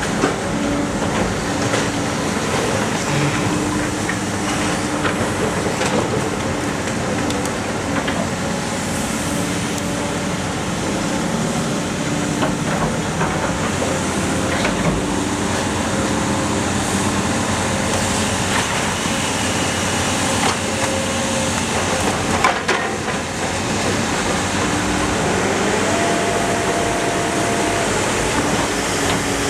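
Iron Pack car baler working: a steady mechanical din with shifting whining tones and a few sharp metal knocks as scrap is crushed.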